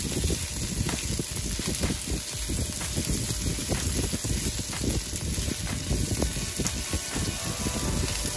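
Diced onion and red pepper sizzling in a cast-iron skillet while a silicone spatula stirs them, with frequent small scrapes of the spatula against the pan.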